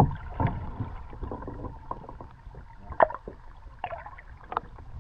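Kayak paddling: paddles dipping and splashing, with a few sharp knocks, the loudest at the very start and others about three and four and a half seconds in.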